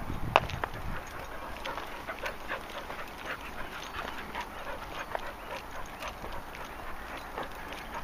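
A dog close by making short, irregular small sounds, with a louder low rumble in the first second.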